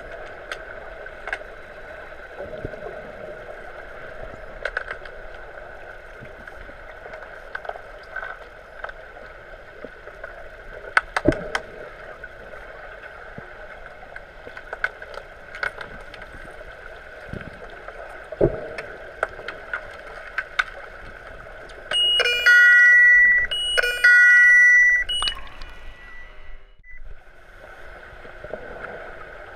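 Underwater pool sound: a steady hum with scattered sharp clicks and knocks from underwater hockey play. Near the end come two loud electronic buzzer blasts, each just over a second long, the underwater referee sounder signalling a stoppage in play.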